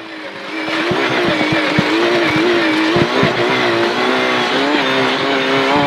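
Rally car engine running hard at fairly steady revs, heard from inside the cockpit, over a constant rushing hiss, with a few sharp knocks.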